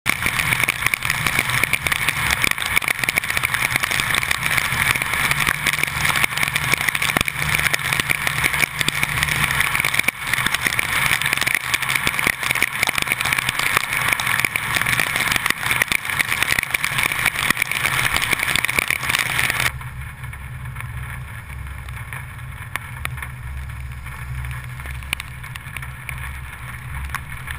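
Heavy rain pelting a car in a thunderstorm downpour, a dense crackling hiss over the low hum of the vehicle. About two-thirds of the way through it cuts off suddenly, leaving only a quieter low road rumble from the car.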